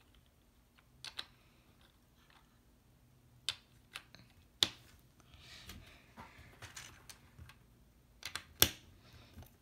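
Plastic LEGO bricks clicking as they are pressed and snapped together by hand: a handful of sharp clicks, the loudest near the end, with soft rubbing and shuffling of pieces in between.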